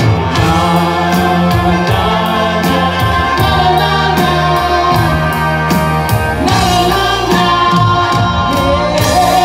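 Live rock band playing: electric guitars and bass over drums keeping a steady beat, with voices singing.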